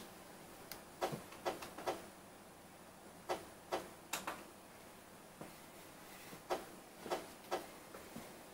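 Dell Latitude CPt laptop booting in its docking station: a faint steady whir with sharp irregular clicks, mostly in groups of two or three.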